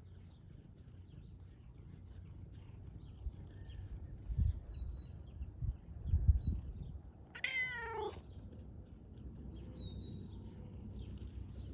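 A domestic cat meows once, a short call that rises and falls in pitch, about seven and a half seconds in. Just before it come a few low thumps, the loudest about six seconds in.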